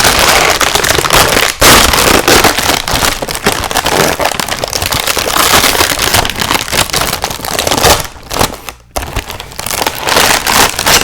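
Cookie package wrapper being crinkled and torn open close to the microphone: a dense, loud crackling that pauses briefly near the end.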